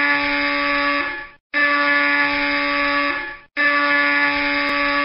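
Three loud, buzzing horn-like blasts, each held about two seconds with a short break between them, the pitch stepping up slightly near the end of each.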